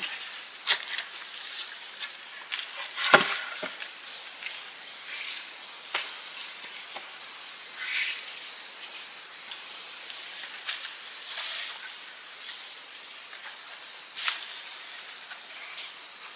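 A steady high insect drone, with scattered sharp snaps and knocks of wood and branches being handled by hand, the loudest about three seconds in.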